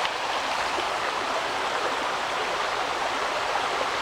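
Creek water rushing steadily over rocks, a constant splashing that does not change.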